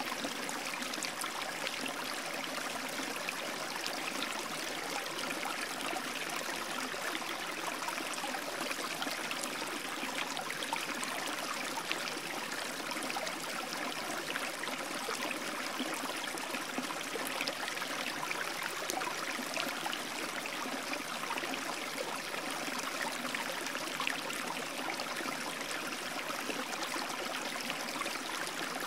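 Steady, even rush of flowing water, unchanging throughout.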